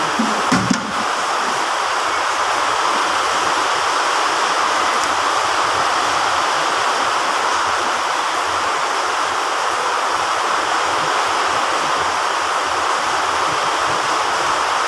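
Heavy rain falling steadily, a dense even hiss, with a few soft knocks in the first second.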